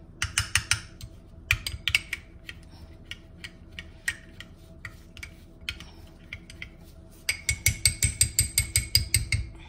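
A spoon stirring a seasoned melted-butter and Parmesan mix in a small glass bowl, clinking against the glass in quick taps. The taps are scattered at first, then turn into a fast, even run of about seven a second near the end.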